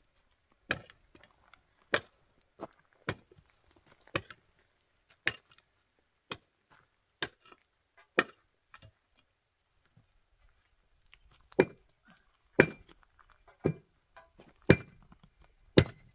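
Repeated chopping blows of a hand tool, one about every second, sharp knocks that grow louder in the second half, the loudest with a short ring.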